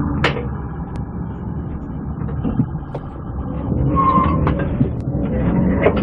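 Motor vehicle running, a steady low engine and road rumble, with a few sharp clicks and a short beep about four seconds in.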